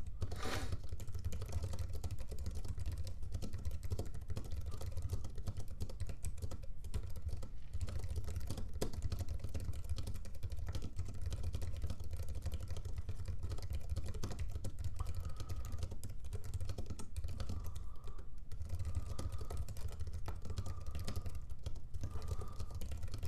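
Fast touch typing on an Apple Wireless Keyboard's low-profile chiclet keys: a quick, unbroken stream of light key clicks over a steady low hum.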